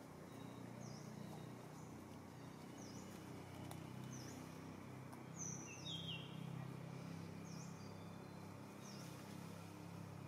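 Faint outdoor ambience: a small bird repeats a short, high chirp every second or two over a low steady hum, with a brighter falling call about five and a half seconds in.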